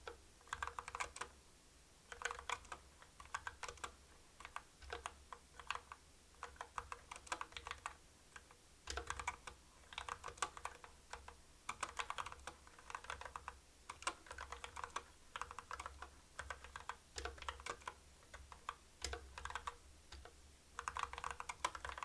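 Typing on a CU65 65% mechanical keyboard with Kailh Box Black linear switches: rapid runs of keystrokes about a second long, with brief pauses between them.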